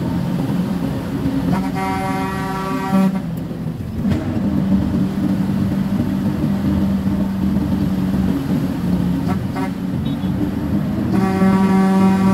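Truck engine running steadily, heard from inside the cab, with two blasts of the horn: one about a second and a half long near the start, and another starting near the end and still sounding as it ends.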